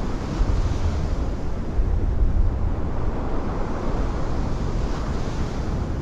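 Giant ocean wave breaking, a deep rumble of churning white water, with strong wind buffeting the microphone.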